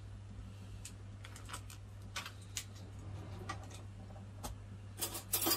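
Scattered light clicks and ticks over a steady low hum, with a denser, louder run of clicks about five seconds in.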